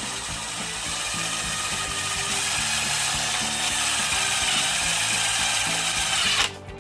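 Cordless power driver running continuously, driving a self-tapping screw through a metal corner angle into the wooden hive body. It grows slightly louder, then cuts off abruptly near the end as the screw seats.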